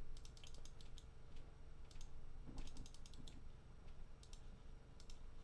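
Faint typing on a computer keyboard: sharp key clicks in short, irregular clusters.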